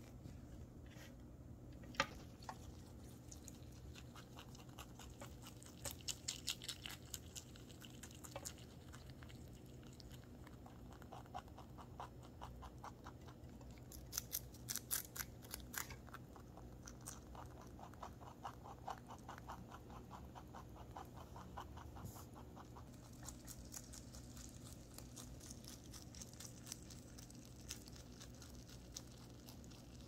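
Pet rabbit chewing fresh cilantro: runs of quick, crisp crunching clicks from its teeth, thickest about six and fifteen seconds in, over a faint steady low hum.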